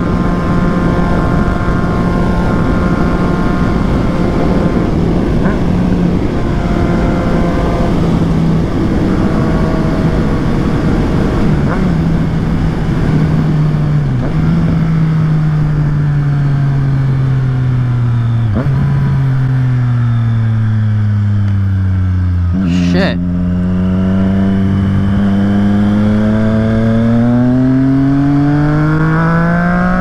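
Triumph Street Triple 765 RS inline-three motorcycle engine with a Yoshimura exhaust. It runs at a steady speed for about the first half, then slows with its pitch falling. A sharp crack comes a little over twenty seconds in, and then the engine accelerates with its pitch rising to the end.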